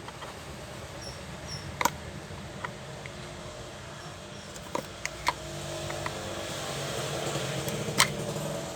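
Scattered sharp clicks and taps of small parts being handled while working on an opened electric spice grinder, over a steady low background hum.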